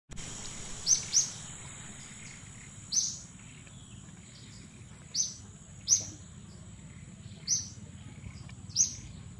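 Infant macaque giving short, high-pitched squeals, seven in all at irregular intervals, over a steady thin high drone of insects.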